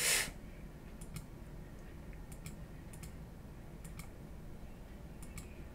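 Faint, scattered clicks of a computer mouse, about eight in all, over low steady room noise, after a brief hiss at the very start.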